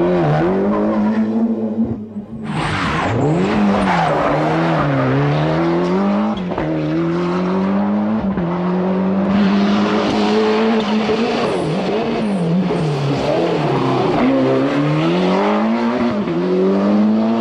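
Ford Escort RS Cosworth rally cars' turbocharged four-cylinder engines revving hard, the note climbing and dropping again and again as they accelerate and back off. There is a brief break about two seconds in.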